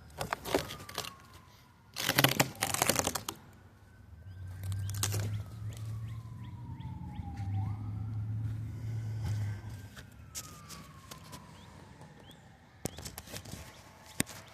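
A distant siren wailing, its pitch sliding slowly down, jumping back up and sliding down again. Short bursts of crackling come near the start, at about two seconds and near the end, and a low steady hum runs through the middle seconds.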